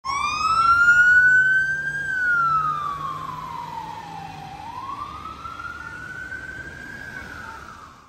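Ambulance siren sounding a slow rising and falling wail: up over the first two seconds, down for about two and a half seconds, then up again. It is loudest near the start and fades steadily as the ambulance drives away.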